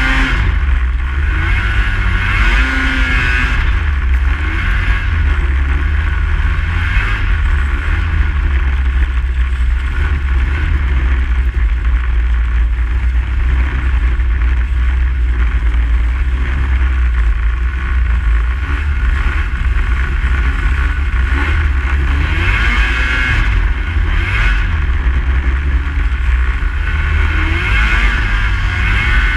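Snowmobile engine running steadily for the whole stretch, a deep low rumble under a constant higher drone.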